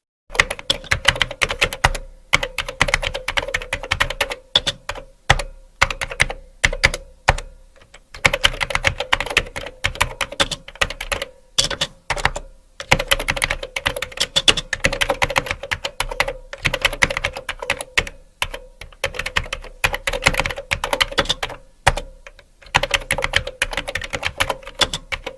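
Computer keyboard typing: fast runs of key clicks broken by short pauses.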